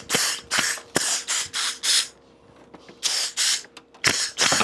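Pneumatic air hammer fired in about ten short, hissing bursts, with a pause of about a second midway.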